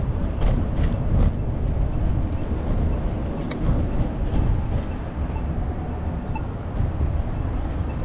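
Wind buffeting the microphone of a camera on a moving bicycle: a loud, uneven low rumble over city street and traffic noise, with a few faint clicks in the first second or so.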